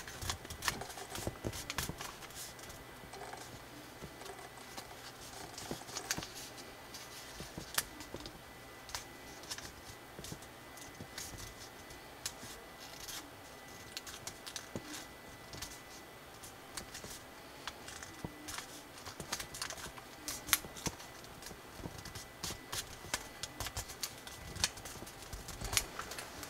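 A sheet of coloured origami paper rustling and crackling in the hands as it is folded and creased, with irregular sharp crinkles and clicks. They are busier near the start and in the last several seconds, and sparser in the middle.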